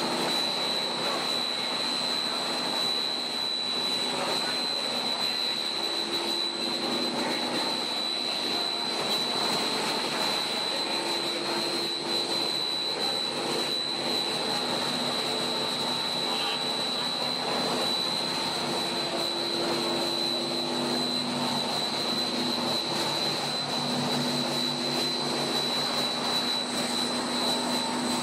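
Monolayer blown film extrusion line running: steady machine noise with a constant high-pitched whine.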